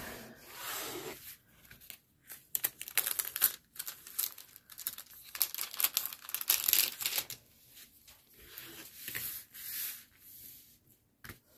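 Plastic scraper tool rubbed repeatedly across a diamond painting canvas in short, irregular scraping strokes, pressing the rolled canvas flat.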